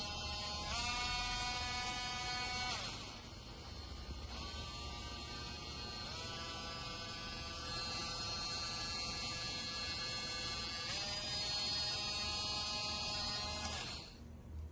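Small battery rotary tool (HARDELL 3.7 V mini grinder) motor whining, stepping up and down in speed several times, then switched off near the end.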